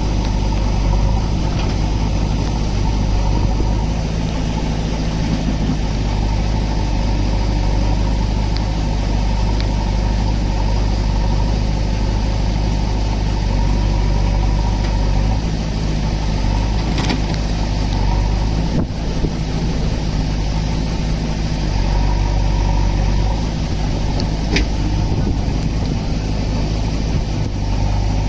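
Four-cylinder diesel of a Mahindra Arjun 555 DI tractor and a JCB backhoe loader's engine running steadily together, with two short sharp knocks, one a little past halfway and one near the end.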